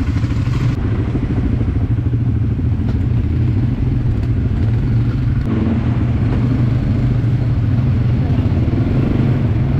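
ATV (quad bike) engine running under way, heard from the rider's seat: a steady low drone with small shifts in pitch.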